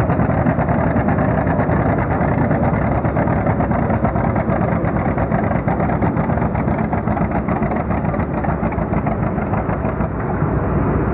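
Antique John Deere two-cylinder tractor engines running steadily, with a dense, even beat of exhaust pulses.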